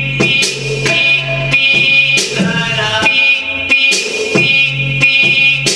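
Dance music playing: sustained pitched tones with a regular beat of sharp percussive hits, and a bending melodic line about halfway through.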